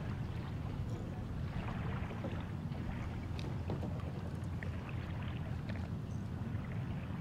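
Harbor police patrol boat's engine idling at the dock as a steady low rumble, with a few light knocks and ticks from kayaks and paddles being handled on the dock.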